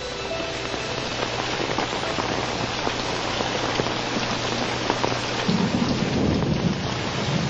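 Steady heavy rain, with a low rumble of thunder that starts about five and a half seconds in and lasts a second or two.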